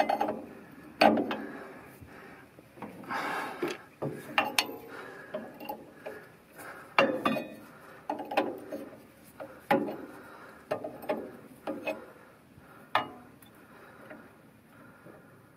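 Metal clinks and knocks of a steel combination wrench fitting onto and turning brass air-line fittings on a truck's park brake chamber, a string of irregular strikes one or two a second, with a short scraping rub about three seconds in.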